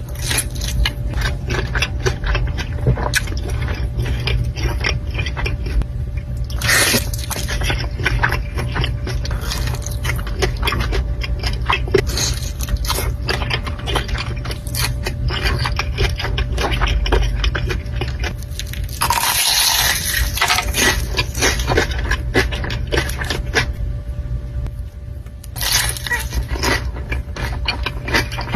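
Close-miked eating: dense chewing and crunching clicks over a steady low hum, with louder noisy bursts about 7 seconds in, around 19 seconds and again near the end.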